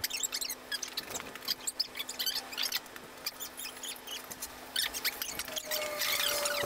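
A run of short high squeaks and small clicks over a faint steady hum, with a steady whistle-like tone starting near the end.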